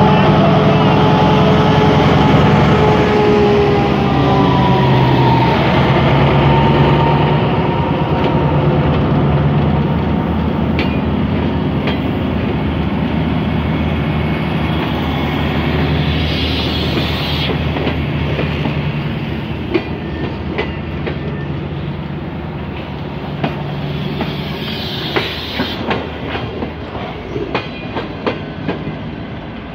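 Long-distance diesel passenger train pulling slowly away. The locomotive's engine hum and whine fade as it passes, then the passenger coaches roll by, their wheels clicking over the rail joints more and more in the second half.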